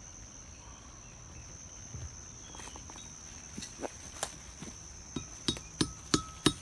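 Hammer blows on a section of railroad track used as an anvil, flattening a hot forge-welded copper-and-nickel mokume gane billet: they start about halfway in, light at first, then come steadily about three a second and grow louder. A steady high whine runs underneath.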